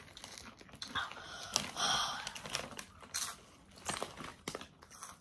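Plastic Doritos chip bag crinkling and rustling as a hand reaches in and pulls out chips, in irregular short crackles.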